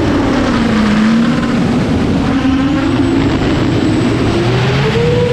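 A 12S X-Class racing drone in flight: its four X-Nova 350KV brushless motors and large propellers give a loud, buzzing whine. The pitch drops about a second in, wavers, and climbs again near the end as the motor speed changes under throttle.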